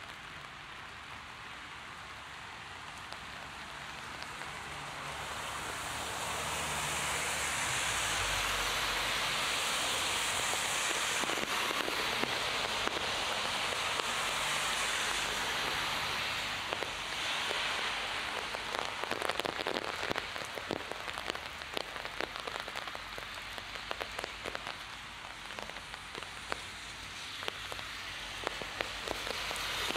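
Heavy rain falling, a steady hiss that swells louder for several seconds in the middle. In the second half, many sharp close drop hits patter through it.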